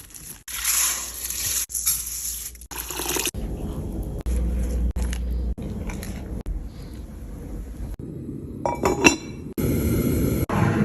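Kitchen handling sounds in several abrupt cuts: glassware and dishes clinking, with liquid being poured or stirred.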